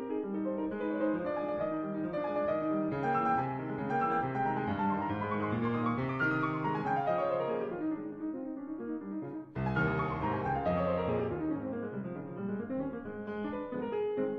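Background piano music played in quick flowing runs, with notes falling down the keyboard; it breaks off for a moment about nine and a half seconds in, then starts again.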